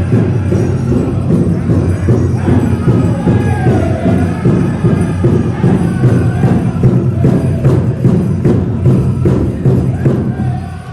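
Powwow drum group: a large drum beaten in a steady, fast rhythm under high-pitched group singing. The drumbeat drops away near the end.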